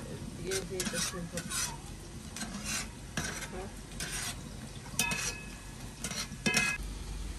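A utensil stirring and scraping in a cooking pot of sizzling food, in irregular strokes one or two a second. Twice near the end a stroke gives a short metallic ring.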